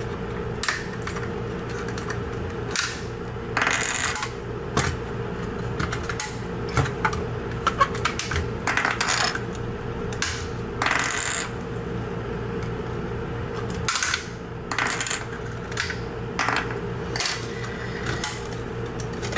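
Small sharp clicks and clinks of hand tools and plastic gauge stepper motors as the motors are worked off an instrument-cluster circuit board, with a few brief louder noises, over a steady low hum.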